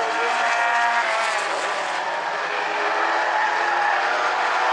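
A pack of small four-cylinder compact race cars racing together, several engines running at high revs, their pitches rising and falling against one another.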